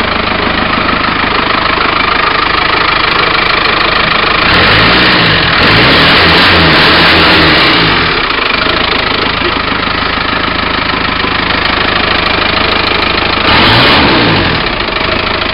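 Turbocharged TDI diesel engine in a Rover P4 idling and being revved: a run of quick blips rising and falling from about four seconds in until about eight seconds, then idling again, and one more blip near the end.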